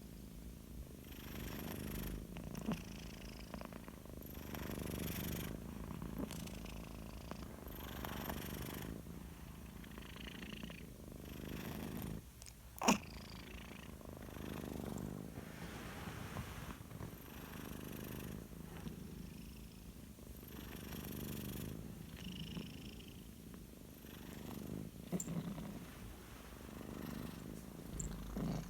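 Cat purring steadily, swelling and fading with each breath about every two seconds, with one sudden sharp sneeze about halfway through. The owner wonders whether allergy is behind the sneezing.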